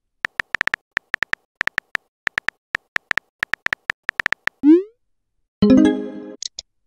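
Phone keyboard typing sound effect: a fast, uneven run of about twenty short key clicks. Then a quick rising swoop as the message is sent, and a brief, louder synthesized tone that fades out near the end.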